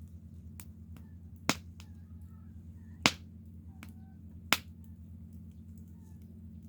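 Wood burning in a campfire, crackling, with three sharp loud pops spaced about a second and a half apart and fainter snaps between them, over a steady low hum.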